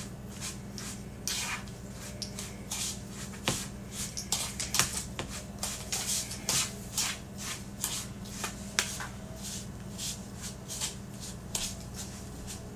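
Metal spoon stirring raisins with cinnamon, nutmeg and brown sugar in a bowl: irregular scraping clicks of the spoon against the bowl, over a steady low hum.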